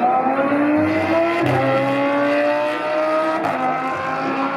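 A Lamborghini and a Ford Mustang accelerating hard in a drag race. The engine note climbs steadily and drops sharply at upshifts about one and a half seconds and three and a half seconds in.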